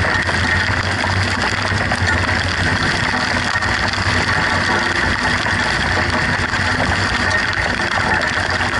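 Car driving through heavy rain: a steady engine drone under a constant hiss of rain and tyre spray.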